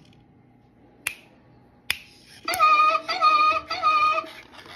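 Two finger snaps, then the Sharper Image Alive Chimpanzee animatronic head answers with three short pitched chimp calls in quick succession.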